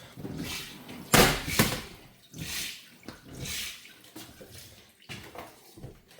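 Water splashing into a sink in uneven surges, as of hands being washed, with two louder splashes between one and two seconds in.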